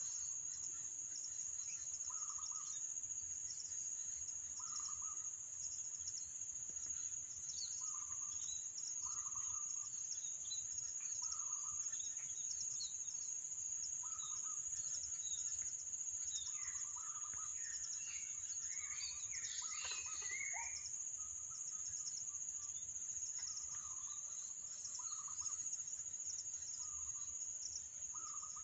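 Morning birdsong: one bird repeats a short call every couple of seconds while other birds chirp, most busily about two-thirds of the way through, over a steady high-pitched insect drone.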